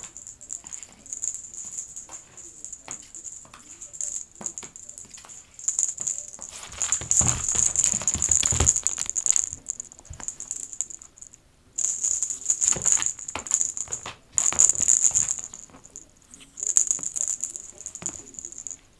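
A small object rattling and jingling in irregular bursts with light taps. It is loudest from about six to ten seconds in and again twice more near the middle, then stops just before the end.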